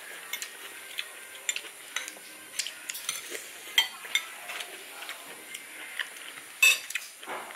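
Cooking: a metal utensil stirring and clinking against a pan, with faint sizzling of frying food. A sharper clatter comes near the end.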